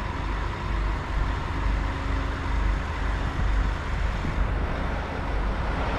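Steady low rumble of a vehicle engine running, with a faint steady hum over it.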